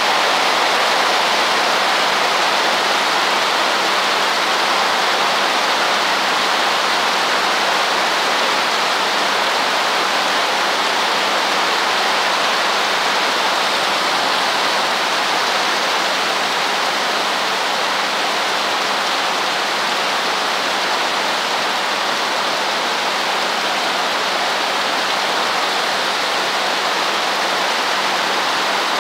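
Heavy rain pouring down, a loud, steady hiss.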